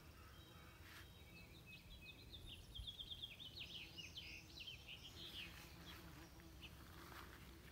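Bees buzzing faintly as they work the blooms of a butterfly bush, a low steady hum. A bird chirps a quick run of short, falling notes from about a second and a half in, louder than the bees.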